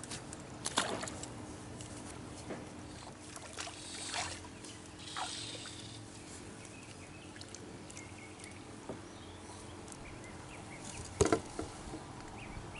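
Handling sounds in a kayak: scattered taps and knocks of fishing gear and the catch being handled, with a sharp double knock about eleven seconds in as the loudest moment. A faint steady hum runs underneath.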